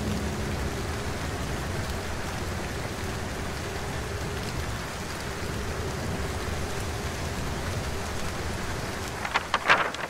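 Heavy rain falling steadily as an even hiss. Near the end, a quick burst of sharp, loud cracks.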